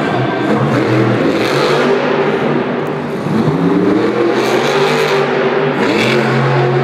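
Monster truck Maximum Destruction's supercharged V8 engine revving hard up and down during a freestyle run. The engine note drops briefly, then climbs again about three seconds in.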